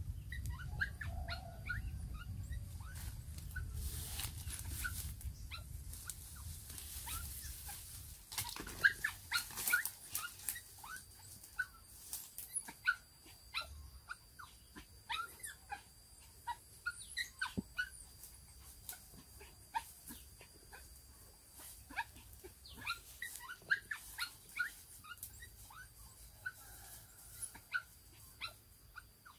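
A small dog caught in a trap whimpering and yelping over and over in short, high cries, a sign of its distress.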